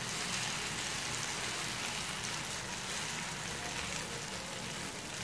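Semolina batter sizzling steadily in a hot, ghee-greased frying pan.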